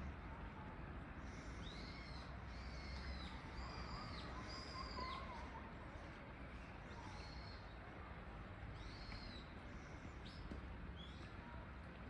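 Shallow water flowing steadily along a narrow canal, with a bird giving short high arching calls: a quick run of them in the first few seconds, then one about every two seconds.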